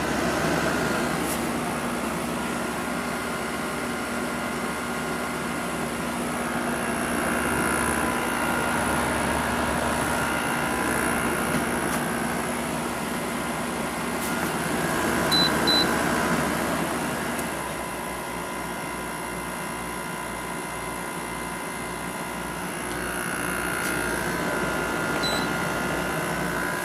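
GE 6,050 BTU window air conditioner running with its fan on high and its rotary compressor on, a steady blowing hum. Short electronic beeps come twice about halfway through and once near the end, and a low hum drops out about two-thirds of the way in.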